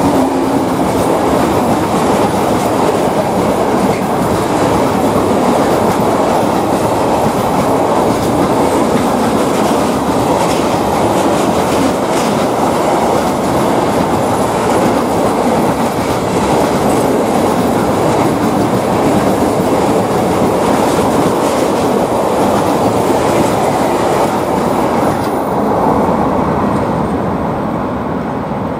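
Freight train's open-top wagons rolling past, a steady rumble and clatter of steel wheels on the rails. The last wagon goes by about 26 seconds in and the sound falls away.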